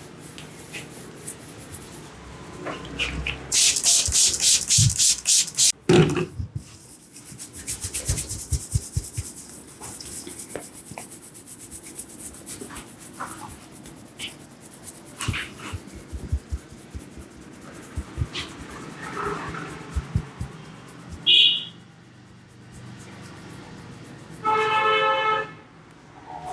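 Hands massaging an oiled head: a quick run of rapid slaps or taps a few seconds in, then scattered pats, rubs and clicks. A short high beep comes about two-thirds through, and a steady pitched tone about a second long near the end.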